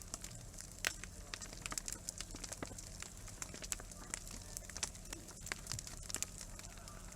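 Wood campfire crackling, with irregular sharp pops and snaps several times a second over a steady low rumble.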